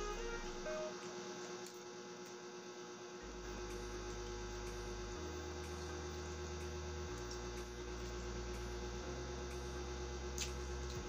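A steady hum runs under slow, sustained low notes that change pitch about every two seconds, like a soft background music bed. There is one faint click near the end.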